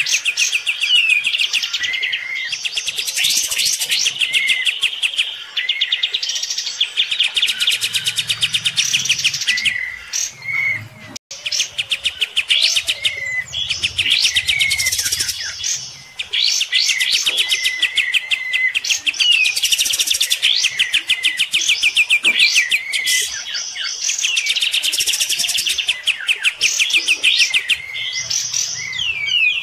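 Kapas tembak bulbul singing hard in long bursts of fast, rattling, chattering notes mixed with short curved whistles, pausing only briefly. This is an aggressive competition song. Faint low thuds come in now and then.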